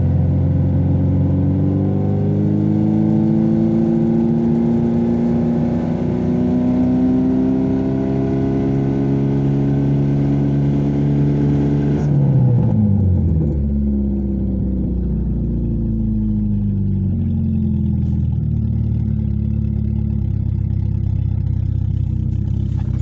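VAZ-2115 1.5-litre fuel-injected engine running, driving its five-speed manual gearbox, which is being checked for gear engagement and noise. The revs hold with slight swells, drop sharply about halfway through, then run on lower and steadier.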